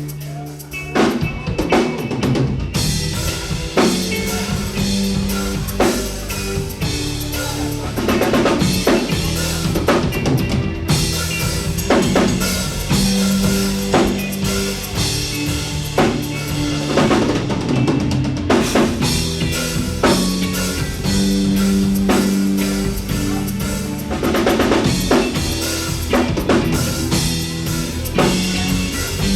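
Live band playing an instrumental passage without vocals. A full drum kit with kick and snare hits drives it, over held low bass notes.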